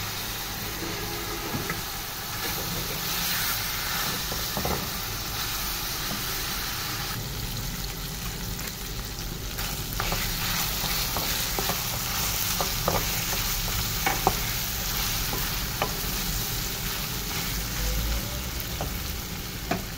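Boiled mutton pieces sizzling as they fry in hot oil with browned onions in a metal pot. A wooden spoon stirs them, with a series of sharp knocks and scrapes against the pot in the second half.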